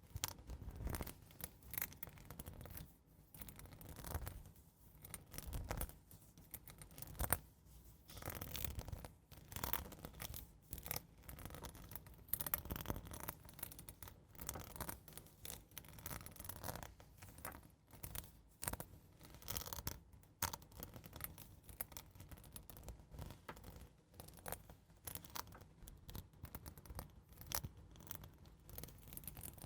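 ASMR scratching, close-miked: soft, slow, irregular strokes of scratching on a surface, one after another without pause.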